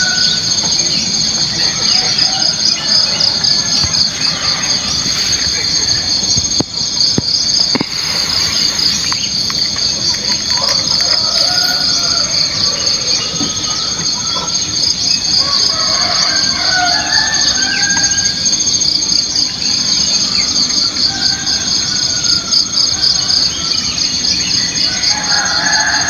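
Dawn chorus of insects: a steady, shrill, rapidly pulsing trill, with scattered bird calls over it.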